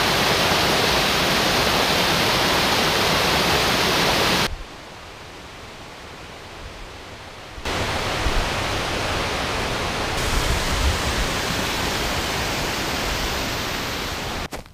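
Small mountain creek cascading over rocks, a steady rush of water. About four and a half seconds in it cuts to a much quieter steady hiss, and about three seconds later to a loud steady rush again, with a few low rumbles.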